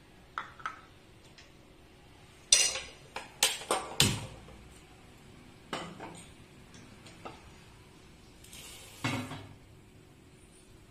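Metal cookware clattering: a metal pan knocks and clinks on the stove top, with a quick run of sharp, loud knocks about two and a half to four seconds in and a few fainter clinks after.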